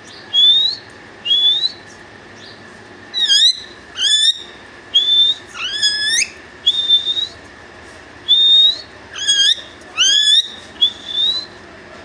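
Young green parakeet giving a string of short rising whistles, about a dozen in all, some sliding sharply upward and a few coming in quick pairs.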